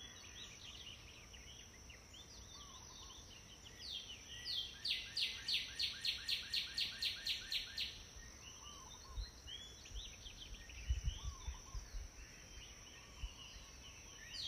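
Duckling peeping in short, high, falling notes: scattered peeps, then a fast even run of about four peeps a second for several seconds, then scattered peeps again. A few low thumps come in the later part.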